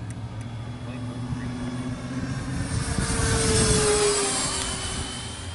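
Freewing F-14 model jet's electric ducted fans whooshing as it makes a pass overhead, swelling to a peak nearly four seconds in and then fading, the tone dropping in pitch as it goes by.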